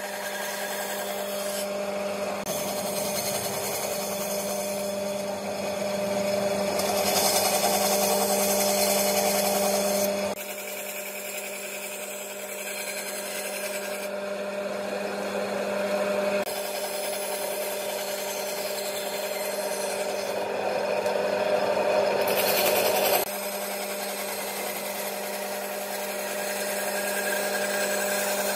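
Bandsaw running with a steady motor hum while its blade cuts through a wooden board. The cutting noise swells and falls as the wood is fed, with several sudden changes in level.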